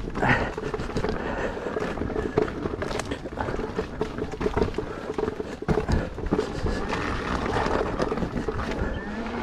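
An electric unicycle riding over a rough dirt trail: a steady rumble from the ride, broken by frequent knocks and rattles.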